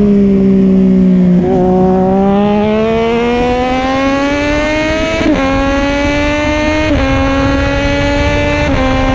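High-revving car engine accelerating hard through the gears: its pitch climbs within each gear and drops sharply at each shift, three or four times.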